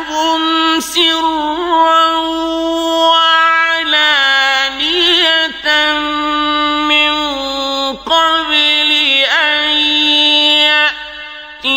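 A man chanting the Quran in Arabic in the slow, melodic mujawwad style, drawing out long held notes with ornamented turns, with short pauses between phrases.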